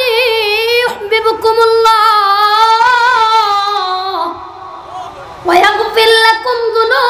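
A boy's high voice chanting a melodic passage in long held notes with vibrato. The long middle phrase slides down and ends about four seconds in, and a new phrase starts after a pause of about a second.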